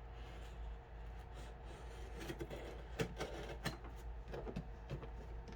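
Faint scraping and rustling with scattered sharp clicks: hands working at a taped cardboard package, trying to get it open.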